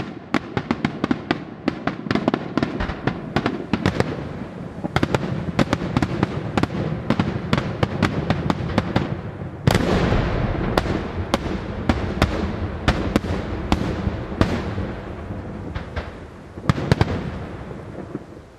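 Daytime aerial fireworks: a fast, dense string of shell bursts and bangs, several a second, with a sudden heavier volley about ten seconds in and another loud cluster near the end before it tails off.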